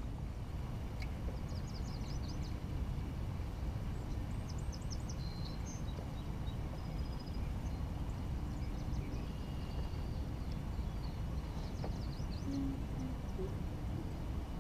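Songbirds calling in several short runs of quick, high notes, over a steady low rumble.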